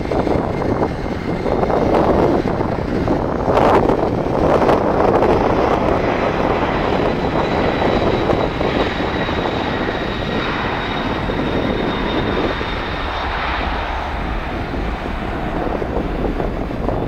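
Jet airliner engines: a steady loud roar with a thin high whine through the middle.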